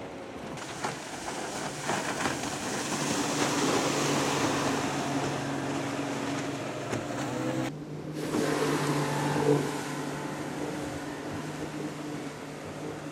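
Outboard motors of speedboat water taxis running at speed past the listener, a steady engine drone over the hiss of hull and wake spray. The sound swells and fades as one boat passes, breaks off briefly about 8 seconds in, then swells and fades again with another pass.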